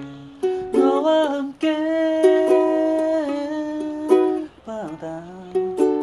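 Ukulele music: plucked ukulele notes under a held melody line that slides between notes about a second in and again near the end.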